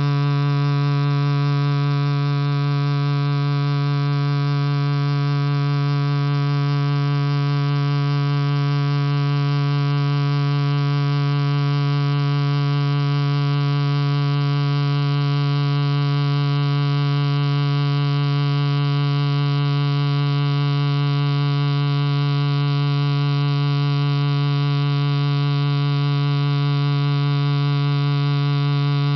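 Loudspeaker driving a cornstarch-covered cymatics surface with a steady low tone, a buzzy hum rich in overtones that holds one pitch and level.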